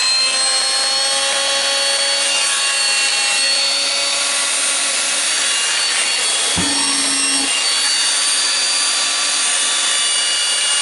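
Makita DGA504 cordless brushless angle grinder running free at full speed after its worn armature ball bearing was replaced: a steady high whine made of several tones, with a short knock and a low hum lasting about a second, about six and a half seconds in. Its sound is judged not bad, though there is still some additional sound.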